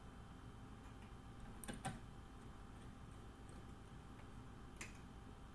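A few faint, sharp clicks and taps of small parts being handled, two close together about two seconds in and one more near the end, over a low steady background hum.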